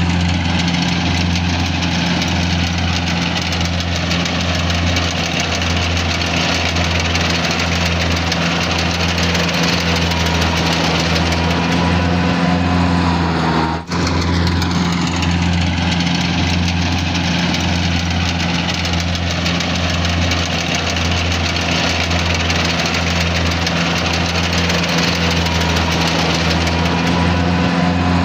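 Mini combine rice harvester running steadily: a constant low engine hum under a broad mechanical clatter and whir, with one brief dropout about halfway through.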